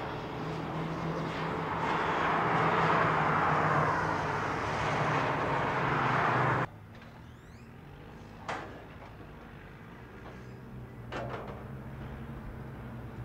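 BMW X6 M's twin-turbo V8 running at track speed, with a steady low engine note under a loud rush of tyre and wind noise that swells and then cuts off abruptly about halfway through. After that, a quieter, steady engine sound with two brief sharp bursts of noise.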